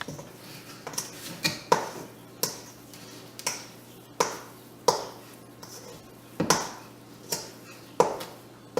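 Spatula knocking and scraping against a mixing bowl as cocoa cookie dough is pressed together into one lump: about a dozen sharp knocks at uneven intervals.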